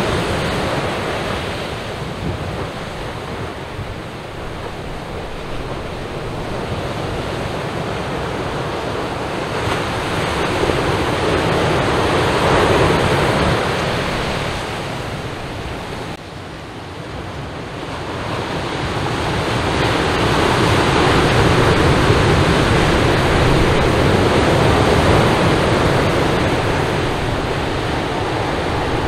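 Heavy surf breaking and washing up a sand beach, the swell raised by a nearby hurricane, coming in slow surges that build and ebb every several seconds.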